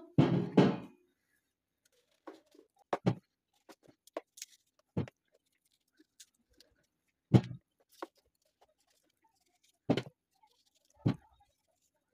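Kitchen knife cutting and scraping the soft centres and seeds out of crisp kelek (unripe melon) pieces: a scattering of short, crisp cuts and soft knocks, a second or two apart.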